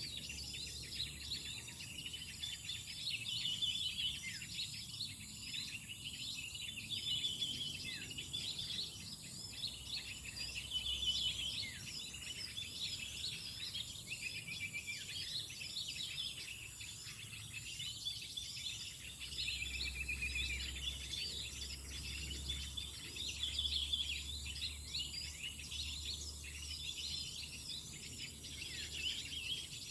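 Many small birds chirping and calling at once, a dense, continuous chatter of short high chirps and trills.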